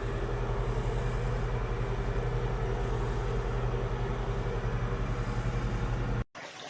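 A steady low mechanical hum with an even pulsing, which cuts off suddenly near the end.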